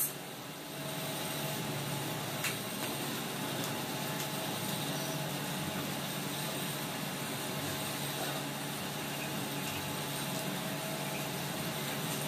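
Steady mechanical hum and hiss, with one faint click about two and a half seconds in.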